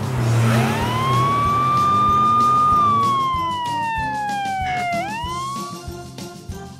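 Police siren wail: a single tone rises about half a second in and holds high. It slowly falls over about two seconds, then sweeps up once more and cuts off near the end. Background music with a bouncy bass line plays underneath.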